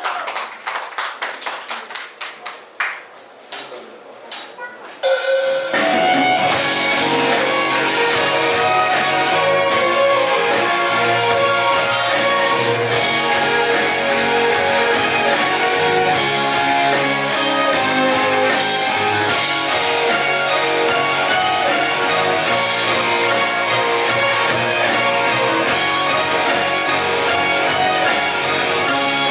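About five seconds of scattered, uneven sound, then a song's instrumental intro starts loud: guitar over a steady drum beat with a hi-hat ticking.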